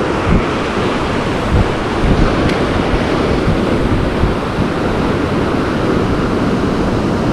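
Rough surf churning and washing against the rocks below, with wind buffeting the microphone in low gusts.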